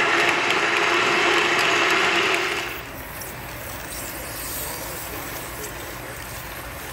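EELS screw-propelled snake robot's motors and gear trains whirring, with a steady hum and rapid clicking. The sound cuts off abruptly under three seconds in, leaving a quieter, even noise.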